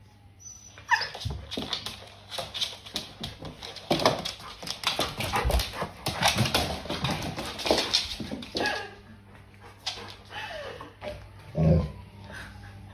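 A golden retriever and a German shepherd puppy playing on a laminate floor: scuffling and clicking of claws and bodies, a short falling whine about a second in, and one loud, short, low dog vocal sound near the end.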